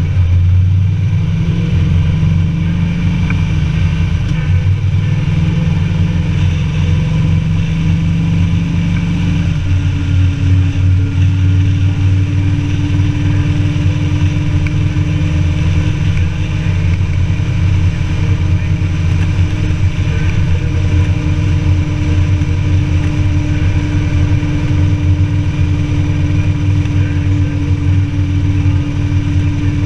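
Sidecar motorcycle's engine running steadily while riding along an open road. About ten seconds in the engine note changes, then holds an even, slowly rising pitch.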